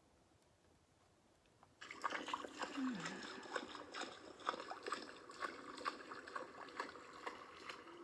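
Children running through puddles: quick splashing footsteps in water, starting about two seconds in, with a brief voice among the splashes.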